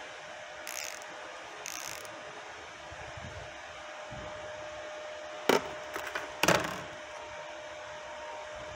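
Ratchet wrench clicking in two short spells while backing out the shift fork's 10 mm bolt on a Toyota C60 transmission. About five and a half seconds in come two sharp metal knocks a second apart, over a steady background hum.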